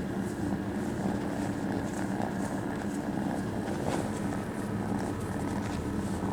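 A kitten purring close to the microphone: a steady, fluttering low rumble, with faint rustles over it.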